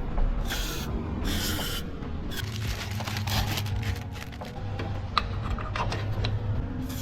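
Hand-tool work on a car's suspension: two rasping scrapes early on, then a run of small clicks and taps.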